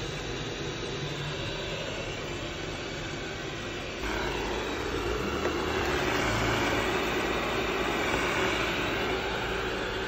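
Roborock S7 robot vacuum running, its suction fan giving a steady rushing noise; it gets louder about four seconds in as it is heard from closer.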